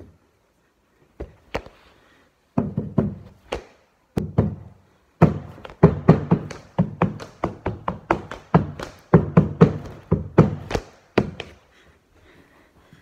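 Carpet stair tool (bolster) knocked repeatedly into the carpet to tuck it into the angle of a stair: dull knocks, a few scattered at first, then a quick run of about three a second that stops about eleven seconds in.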